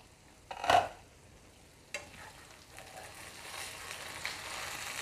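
Kadai chicken sizzling in its thick masala in a pan, cooked without water. About a second in there is one short clatter as the lid is lifted, and from about two seconds in the sizzle grows steadily louder.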